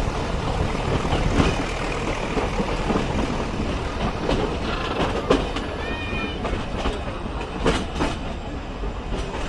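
Nilgiri Mountain Railway toy train's carriages rumbling and clattering along the rails, with irregular knocks and a brief high squeal about six seconds in.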